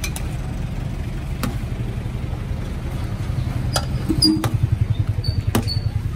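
A metal ladle clinks a few times against a large aluminium cooking pot and bowl, each clink ringing briefly, as broth is ladled out. Under it runs a steady low engine-like rumble that turns into a fast, even pulsing about four seconds in.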